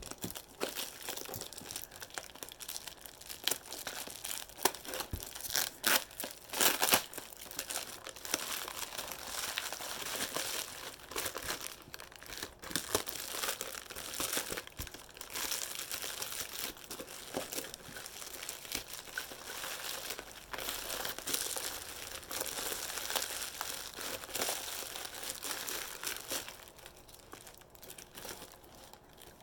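Packing wrap being crinkled, crumpled and torn by hand as a parcel item is unwrapped, with a steady run of irregular sharp crackles that thins out near the end.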